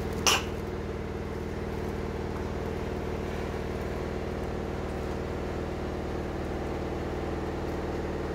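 A steady machine hum made of several even, unchanging tones. About a third of a second in, one short sharp rustle is heard as the rice cooker is handled over its plastic wrapping.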